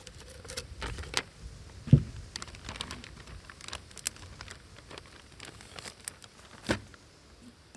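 Plastic zip-lock bags crinkling and rustling as they are handled and opened, with scattered small clicks. There is a dull thump about two seconds in and a sharp click near the end.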